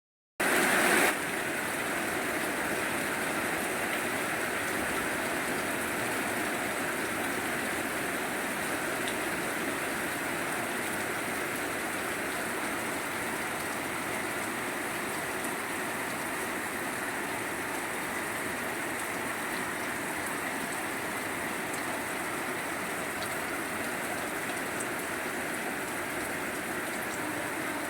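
Steady rainfall, an even hiss of rain with no breaks. It starts abruptly just under half a second in and is a little louder for the first second before settling.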